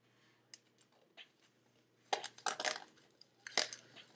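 Small cardboard software box and its packaging being handled and opened by hand. A few light clicks, then crinkly scraping rustles about two seconds in and again near the end.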